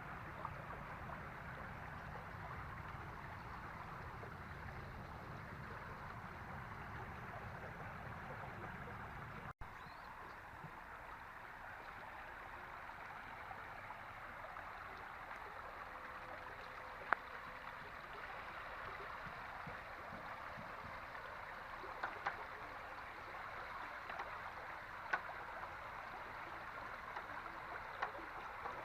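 Steady rush of flowing flood water, with a few sharp clicks or small splashes in the second half and a brief break in the sound about ten seconds in.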